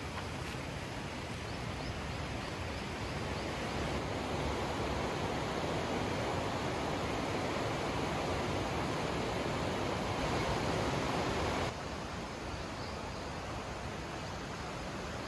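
Steady rushing of a river flowing through a rocky gorge, with no tones or clicks; it swells a few seconds in and drops back suddenly near the end.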